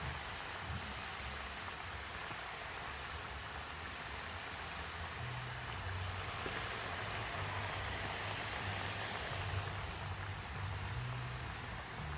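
Hot oil sizzling and bubbling steadily around flour-dusted lobster pieces deep-frying in a pot. It grows a little louder about halfway through.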